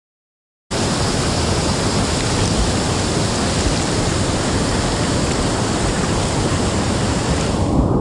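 Rushing water of river rapids and small cascades close to the microphone: a loud, steady rush that starts abruptly about a second in. Near the end the higher part of the sound drops away and it turns duller.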